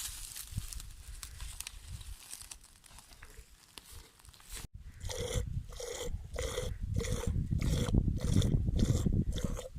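Sheep being milked by hand: milk squirting into a pail in a steady rhythm of about two to three squirts a second, starting about halfway through after quieter rustling.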